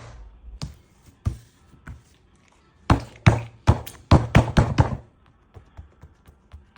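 Slime being pressed and popped in a pop-it fidget toy: a few scattered sharp pops, then a quick run of about eight loud pops, then faint ticks.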